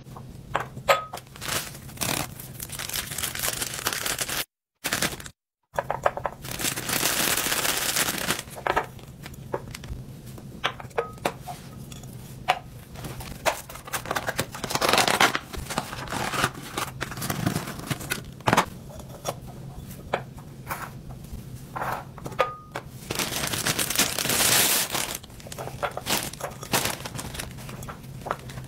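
Hands handling glass canisters with cork lids on a countertop: scattered clicks and thunks of glass and cork, with several stretches of crinkly tearing as a sticker label is peeled off. Two brief silent gaps come about five seconds in.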